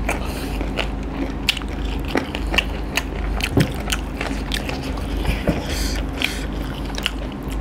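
Close-miked eating sounds: chewing and wet mouth clicks, with fingers squishing curry gravy into rice, as many short irregular clicks. A steady low hum runs underneath.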